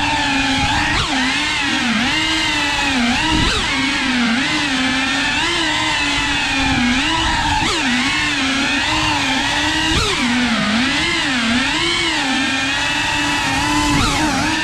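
FPV racing quadcopter's motors and propellers whining, the pitch swinging up and down every second or so as the throttle is worked.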